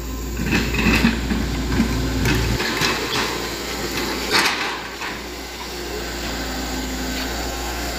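Hitachi Zaxis 110MF excavator working a drainage ditch: its engine runs low and steady under several sharp knocks and clanks from the boom and bucket.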